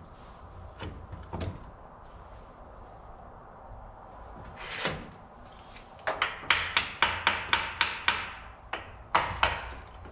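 Metal parts and tools knocking and clinking on a steel workbench during a transmission teardown. A few faint knocks and a short scrape lead into a quick run of about ten sharp clinks from about six seconds in, then two more near the end.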